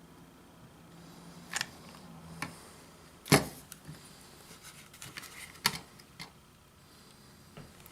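Scattered clicks and knocks of objects being handled and set down on a work surface, with two louder knocks about three seconds in and again near six seconds, during a hot-glue repair.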